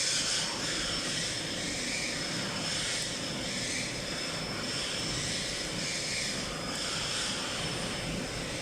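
Steady running machine noise with a thin, constant high whine, its hiss swelling and easing every second or so.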